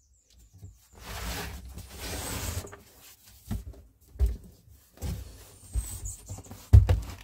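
Cardboard box being handled close to the microphone: a scraping, rubbing rustle for about two seconds, then a few dull knocks, the loudest near the end.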